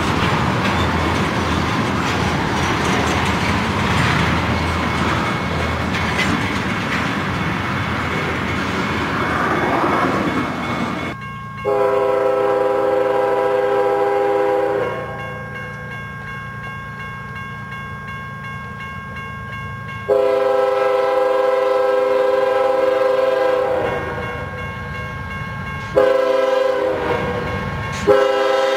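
Freight train of tank cars rolling past close by, a steady rumble and clatter of wheels on rail. After a cut, a diesel locomotive's air horn sounds a chord in the grade-crossing pattern: a long blast, a second long blast, a short one, and a final long one starting near the end as the train approaches.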